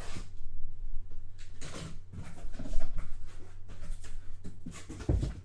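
A cardboard case of sealed card boxes being handled and opened: irregular scraping and rustling of cardboard, with a couple of heavier knocks near the end, over a steady low hum.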